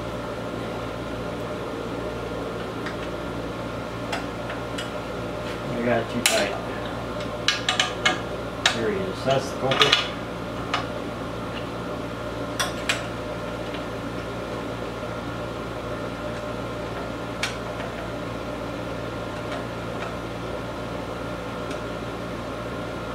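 Metal tools clinking and scraping against a chainsaw while its chain tensioner screw is worked with a screwdriver. A quick run of clicks comes about six to ten seconds in, with a few more after, over a steady air-conditioner hum.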